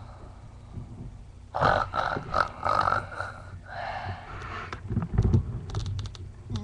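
A person snoring with a raspy, rattling snore in quick pulses, then a second, shorter snore, followed by a few dull thumps.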